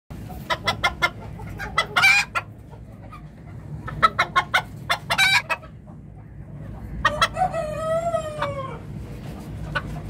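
Minohiki bantam chickens clucking in quick runs of short calls. About seven seconds in, a rooster gives one long crow that falls in pitch at the end.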